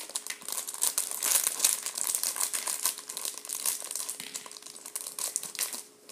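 Crinkling and rustling of Minion Mega Bloks toy packaging being handled and pulled open, in quick irregular crackles that thin out near the end.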